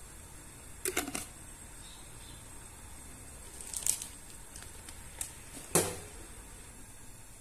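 Scattered short, sharp clicks and knocks: three in quick succession about a second in, a couple near four seconds, and the loudest near six seconds, over a faint steady hiss.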